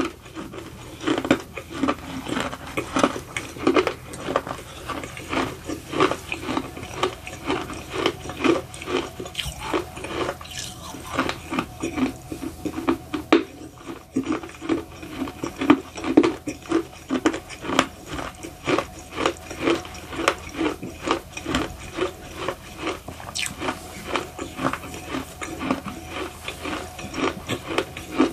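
Close-up chewing of a mouthful of baked edible clay: a steady run of gritty crunching chews, about two to three a second.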